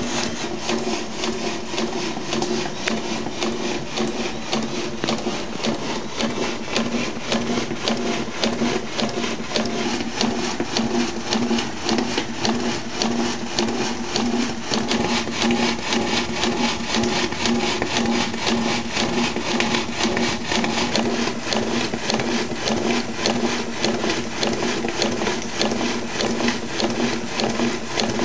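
Bolton 17 model marine steam engine running steadily on 15 psi saturated steam, its Stephenson link valve gear and cranks giving a fast, even mechanical clatter. This is a test run of the original assembly, which the owner says shows alignment and running issues.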